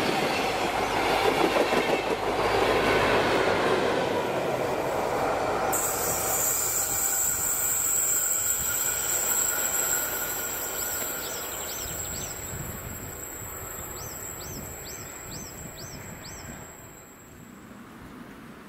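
Passenger train of coaches rolling past close by and drawing away, its wheels running over the rails. From about six seconds in, a thin high wheel squeal rings out while the rolling fades, with short repeated squeals in the second half, and it stops shortly before the end.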